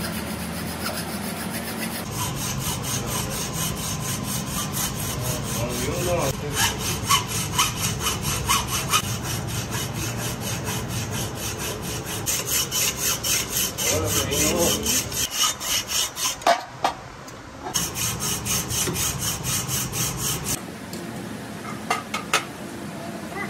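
Hand hacksaw sawing through a cast metal piston held in a lathe chuck, in quick, steady back-and-forth strokes. There is a short pause partway through, and the sawing stops a few seconds before the end, followed by a few light clicks of handling.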